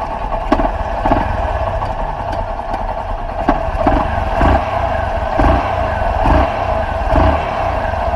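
Honda CG Fan 125's single-cylinder four-stroke engine running at idle, its level swelling several times. The engine has just been fitted with a new cam chain, and is run to check that the metal-on-metal noise from the worn chain is gone.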